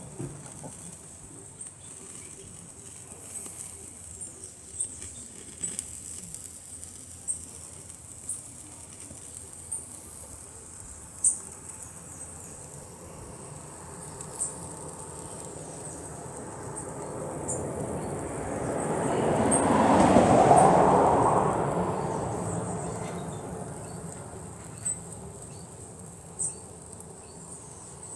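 Steady high chirring of crickets or other insects, with scattered sharp clicks. About two-thirds of the way in, a broad noise rises over a few seconds to the loudest point, then fades away.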